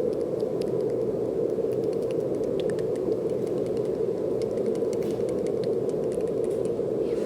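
Steady brown noise, an even rushing hiss weighted low, with faint light clicks scattered through it.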